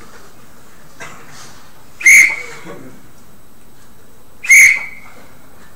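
A referee's whistle blown in two short, sharp blasts, about two and a half seconds apart.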